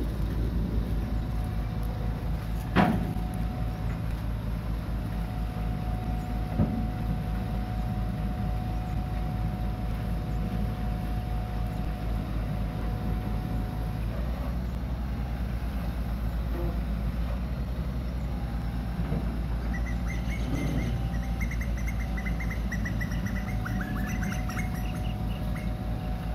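Diesel engine of a Hitachi Zaxis 130 amphibious excavator running steadily while its hydraulics lower the boom and bucket, with two sharp knocks about 3 and 7 seconds in. A run of high chirps comes near the end.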